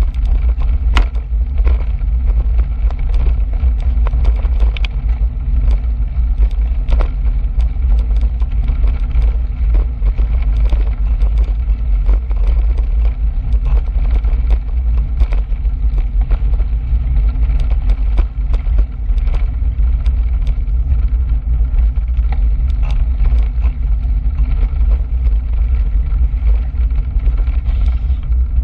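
Bicycle rolling along a gravel trail: a steady low rumble of wind and ride vibration at the microphone, with frequent small clicks and knocks of the tyres over gravel.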